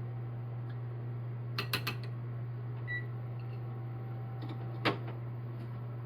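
A steady low hum, with three quick clicks about one and a half seconds in, a short electronic beep about three seconds in, and a louder single knock near five seconds.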